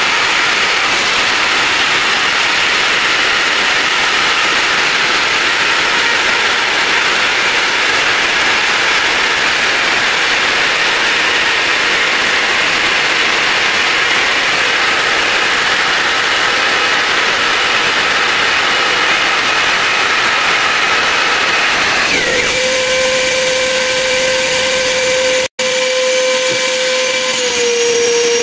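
Diamond core drill boring through a wall with a vacuum dust extractor attached: a loud, steady motor-and-cutting noise. About 22 seconds in the cutting noise stops and a steadier hum with one clear tone carries on, with a brief dropout a few seconds later.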